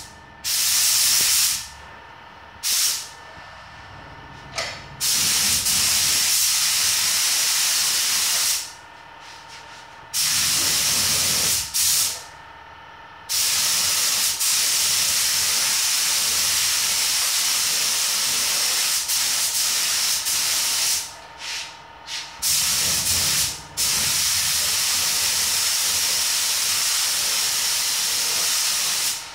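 Iwata AirGunsa spray gun with a 1.3 mm nozzle spraying clear coat: a loud hiss of compressed air that starts and stops sharply with the trigger. A few short bursts come first, then long passes of several seconds each.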